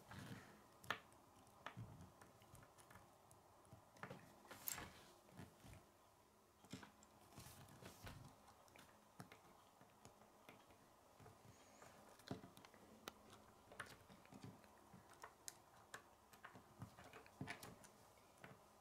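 Faint, irregular clicks and taps of plastic K'nex pieces being handled, snapped together and set down on a wooden tabletop.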